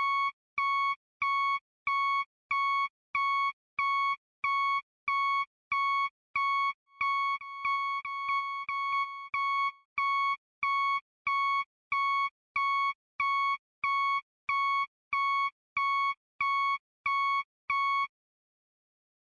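Electronic beeping, a steady pure tone repeating about one and a half times a second. Around the middle it holds as one continuous tone for a few seconds, then goes back to beeping and stops near the end.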